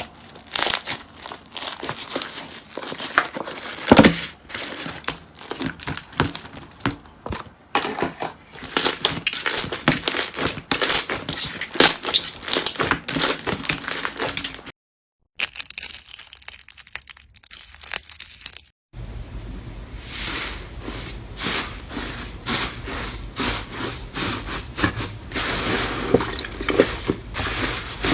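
Slime being squeezed, poked and stretched by hands, giving dense runs of small wet crackling clicks and pops. The sound breaks off briefly twice, around the middle, between clips.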